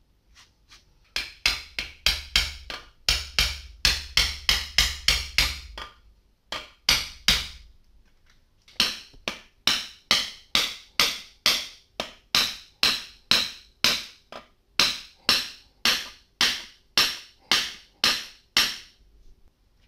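Hammer blows on a steel rebar rod clamped in a bench vise: sharp metallic strikes, about two a second, with two short pauses partway through.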